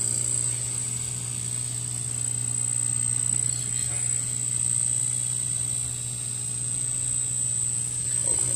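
Aquarium bucket-filter system running: a steady electric pump hum with water flowing through the plumbing and bucket.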